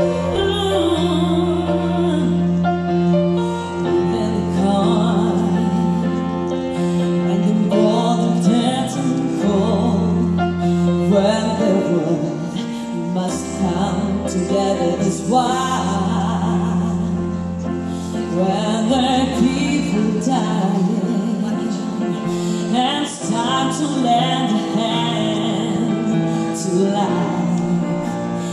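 Music with a singing voice over held low bass notes.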